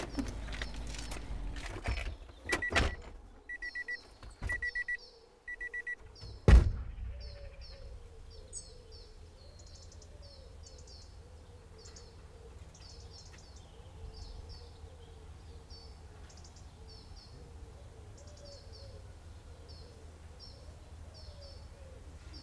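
Car doors being opened, with clicks and knocks and a few short electronic beeps from the car, then a door slammed shut about six and a half seconds in. After that, birds chirping over a low steady background hum.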